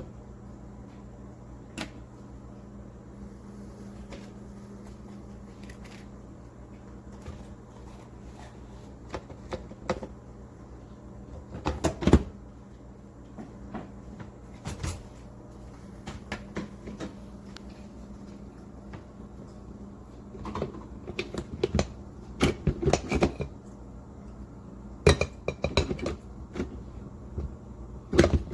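Scattered knocks and clatters of kitchenware being handled, in bunches with quiet gaps between, over a steady low hum.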